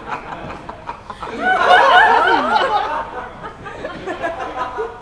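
People laughing and chuckling, loudest in a burst starting about a second and a half in.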